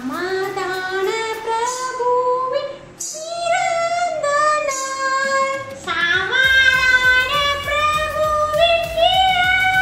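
A high-pitched voice singing a melody with long, held notes that slide between pitches; about six and a half seconds in, a steady backing beat joins under the singing.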